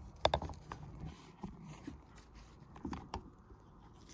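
Scattered light clicks and taps from hand tools and metal parts being handled, the loudest a quick cluster about a quarter second in, with a few more around the middle and about three seconds in.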